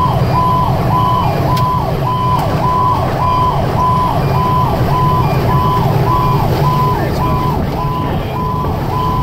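Fire engine's electronic siren in a fast yelp, about two sweeps a second, each rising quickly, holding briefly, then falling, heard inside the cab of a 2010 Pierce Arrow XT over a steady low rumble of engine and road noise.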